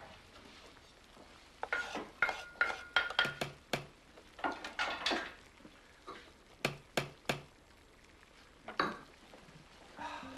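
Kitchen crockery, pans and cutlery clattering as they are handled at a counter: a quick run of knocks and clinks, some ringing briefly, then three sharp clinks and a last knock. Music comes in at the very end.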